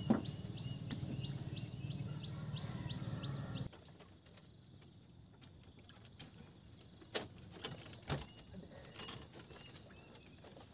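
A small bird's short high chirps repeat about three times a second over a low steady hum. A little over three seconds in, the sound drops abruptly to a quieter background with a few sharp clicks.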